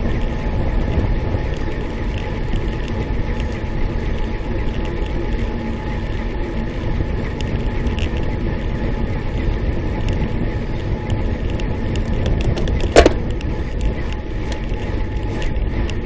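Wind rushing over the microphone of a camera mounted on a moving road bike, with tyre noise on asphalt. A single sharp knock about thirteen seconds in.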